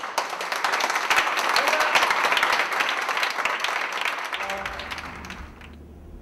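A small group of people clapping, the applause dying away about five seconds in.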